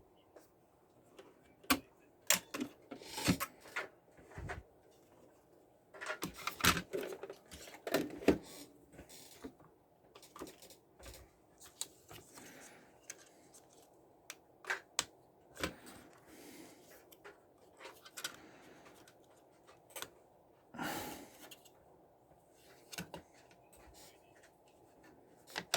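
Irregular clicks and taps of small hard objects being handled at a workbench, coming in uneven clusters, busiest in the first eight seconds and again about twenty seconds in.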